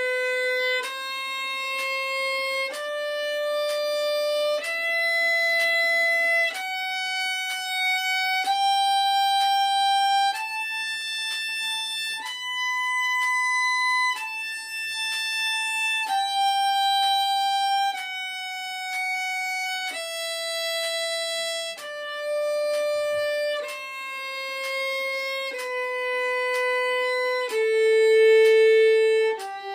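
Solo violin playing a G major scale in slow, separate bowed notes of two beats each. The notes climb step by step to a high note about halfway through, then come back down.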